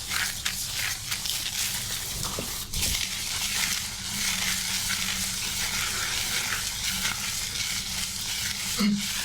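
Fingers scrubbing shampoo lather through wet hair and over the scalp: a continuous wet, crackling rustle of foam, with a low steady hum underneath.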